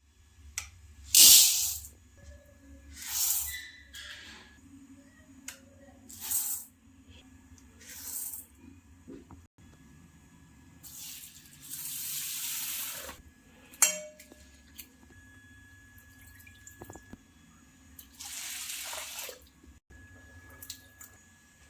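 Water running or being poured in about six short splashes, one of them longer near the middle, with light clicks of kitchen utensils between them.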